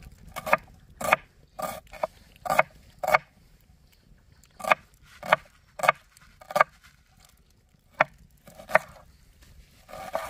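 Kitchen knife chopping an onion on a wooden cutting board: about a dozen chops in short uneven runs, roughly two a second.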